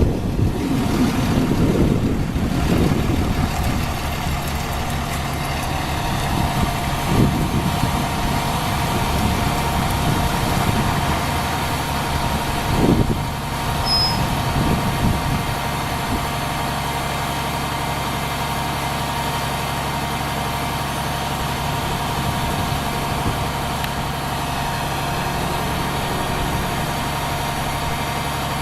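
Fire truck's diesel engine idling steadily, with irregular knocks and rumble in the first half before it settles to an even hum.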